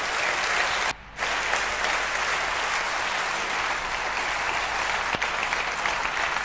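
Audience clapping, a dense, steady applause. It drops out briefly about a second in, then carries on.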